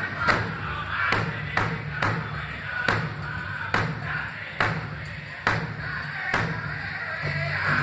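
Powwow big drum struck in unison by the drum group in a steady beat, with the singers' voices carrying on underneath; the high singing drops back in the middle and comes up again near the end.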